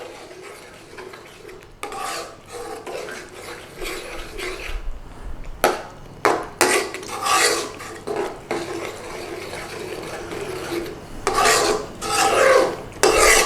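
A utensil stirring a thick curry in a pan and scraping against the pan, a series of rasping scrapes of uneven length that are loudest near the end.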